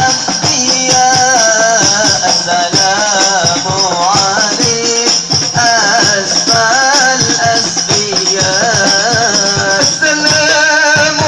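Hadrah al-Banjari music: a solo voice sings a wavering, ornamented devotional melody over quick, dense frame-drum strokes, with a steady high jingling rattle throughout.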